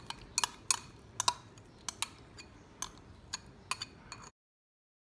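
Metal spoon clinking and scraping against glass bowls while chili sauce is scooped out, a series of sharp, irregular clinks. The sound cuts off suddenly a little after four seconds in.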